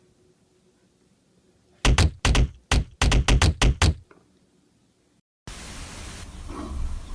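A quick run of about nine loud knocks over two seconds, after near quiet, followed by a steady noisy room background from a new clip.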